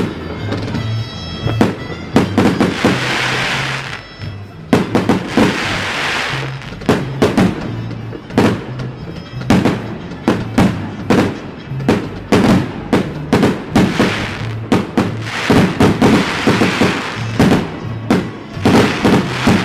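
Aerial fireworks going off in a rapid, irregular run of bangs and crackles, with longer hissing spells every few seconds. Music with a steady bass line plays underneath.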